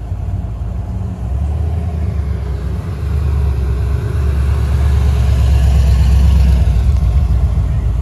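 Car engine with a deep low rumble, growing louder over several seconds and loudest about six seconds in as the car passes close by.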